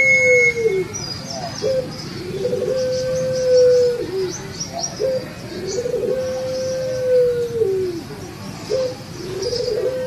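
Barbary dove of the 'puter pelung' long-cooing kind cooing: its phrase repeats about every three and a half seconds, a short note and then a long held coo that drops in pitch at the end. Faint high chirps of small birds sound behind it.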